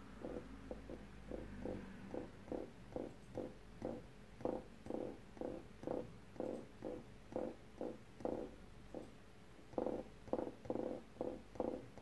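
Budgerigar pecking and mouthing a small plastic cage-toy ball, a steady run of soft, muffled knocks about two or three a second.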